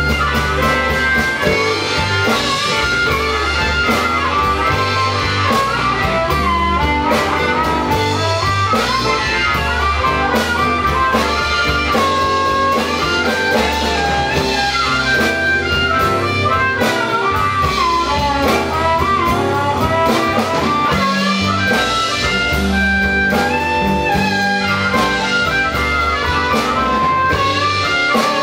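Live blues band playing an instrumental stretch of a slow blues: electric bass and drums under guitars, with a bending melodic lead line on top, likely harmonica or electric guitar.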